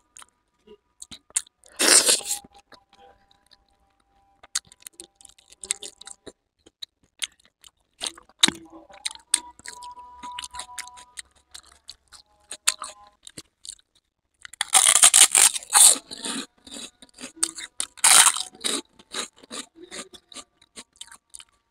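Close-miked eating of chole bhature: a mouthful chewed with many small wet mouth clicks. Loud crisp crunches come about two seconds in and again in two spells in the last third.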